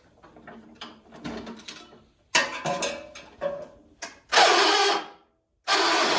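Light mechanical clicking and rattling, then the 1976 John Deere 300 lawn tractor being started with a faulty starter: loud cranking bursts that stop and start. Near the end a loud, steady engine noise begins.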